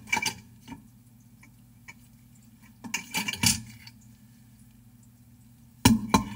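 Metal parts of a Belimo LF24-SR actuator's gear train and return-spring housing clinking and rattling as they are handled, in three short bursts of clicks: near the start, about three seconds in, and near the end.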